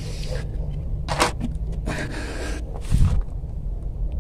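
Plastic containers being handled on a wooden turntable: a clear plastic tub is slid away with short scrapes and rustles, and a plastic mesh pot is set down with a knock about three seconds in, over a steady low rumble.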